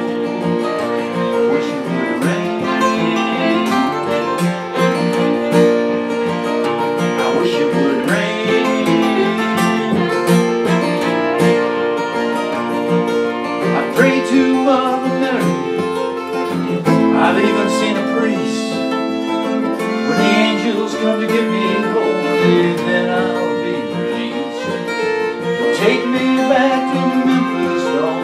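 Two acoustic guitars and a fiddle playing an instrumental break, with no singing.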